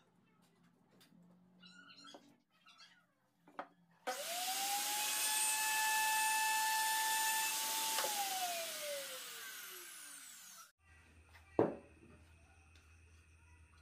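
A table-mounted router starts about four seconds in, its whine rising quickly to a steady pitch as it cuts the edge of a round wooden disc. It is switched off about four seconds later and winds down with a long falling whine. The sound then cuts off and a single knock follows.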